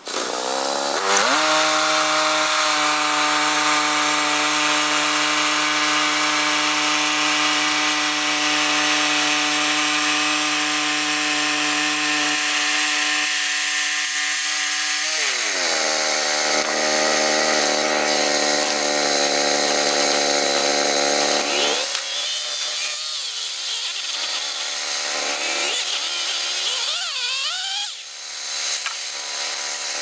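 Woodland Mills HM122 bandsaw mill running: its gas engine revs up about a second in and holds a steady note with a hiss on top, drops to a lower note about halfway, then cuts out a little over twenty seconds in. A different, wavering, higher-pitched machine noise follows to the end.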